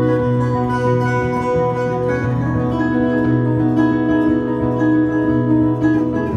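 Two acoustic guitars playing a duet together, with a held low bass note under a plucked melody.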